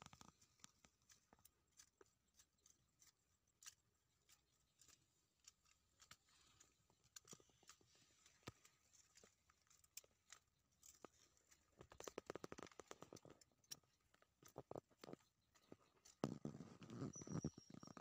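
Mostly near silence with faint, scattered clicks and rustling of dry leaves and grass in the undergrowth. There are louder patches of rustling about twelve seconds in and again near the end.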